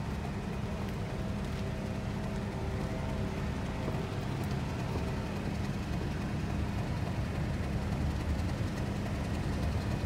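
Class 31 diesel locomotive's English Electric V12 engine running at low power as the locomotive creeps slowly in, a steady drone with a held low note, growing gradually louder as it nears.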